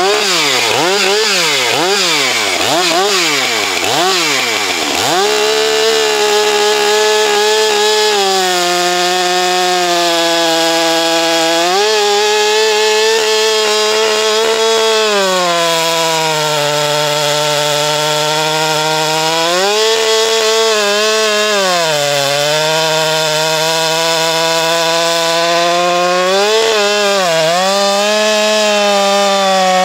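Stihl MS 462 two-stroke chainsaw revved up and down several times, then cutting through oak at high revs with a new, sharp standard (full-complement) chain, its pitch dipping a little under load and recovering. The saw pulls through smoothly without bogging.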